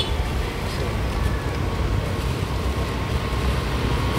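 Motorcycles approaching along the road: a steady low engine rumble, with a faint steady engine hum coming in near the end.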